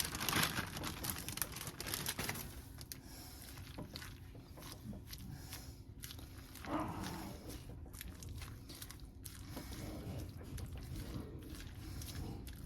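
Kitchen food-prep handling: soft scattered clicks, scrapes and rustles of a topping being spooned and spread onto sandwiches. The sounds are busier in the first two seconds and fainter after, with one brief louder knock about seven seconds in.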